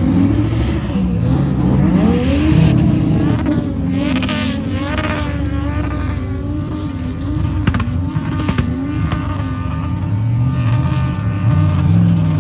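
Car engines revving hard, their pitch climbing and falling again and again with several overlapping, plus two sharp cracks a little past the middle.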